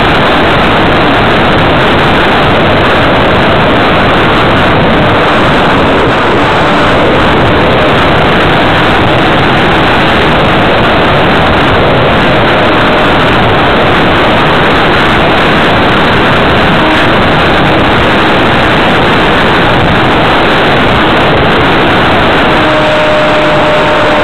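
A small onboard camera on an E-Prairie L radio-controlled model airplane in flight, picking up a loud, steady rush of wind and motor/propeller noise. A faint steady whine appears about two seconds before the end.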